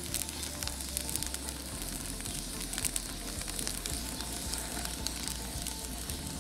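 Wood fire of log rounds burning in a mangal, crackling steadily with many short sharp pops, the wood being burned down to coals for grilling.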